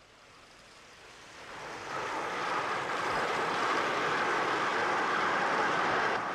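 Gauge one garden model train running past on its track: a steady rushing noise that builds over the first two seconds, holds, and begins to fade near the end.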